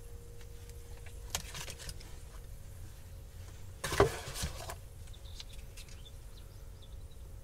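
Sauce squeezed from a plastic squeeze bottle onto a pita kebab: a click and a brief rustle about a second and a half in, then a louder short burst of noise around four seconds in. A faint steady hum runs underneath.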